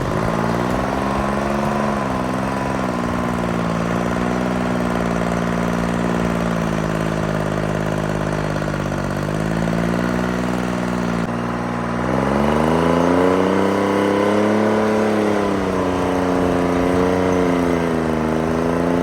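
Timberjack 225D skidder's Detroit Diesel 3-53 two-stroke engine working while plowing snow, its revs rising and falling again and again. About twelve seconds in it revs harder and runs louder.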